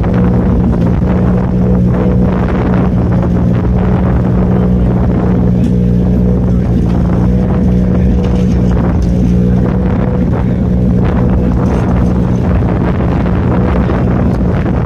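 An engine running steadily at a constant speed, an even low hum that does not change pitch, with scattered knocks and rustles of handling close by.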